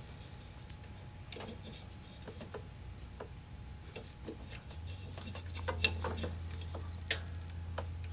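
Faint scattered clicks and rubbing as a gloved hand works the rubber deck belt onto the pulleys under a Cub Cadet GTX 2100 mower deck. There are two sharper clicks about six and seven seconds in, and a low steady hum comes in about five seconds in.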